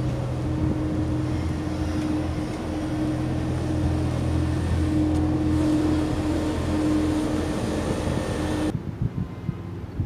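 A heavy vehicle engine running steadily, a low hum with a higher tone over it. About nine seconds in it cuts off abruptly to quieter street noise.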